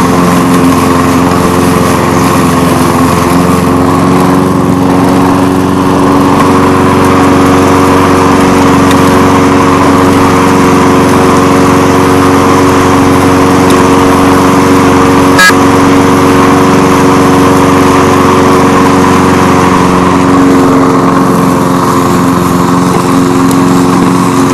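A walk-behind push mower's small gasoline engine running loud and steady while it cuts grass. There is one sharp click about two-thirds of the way through.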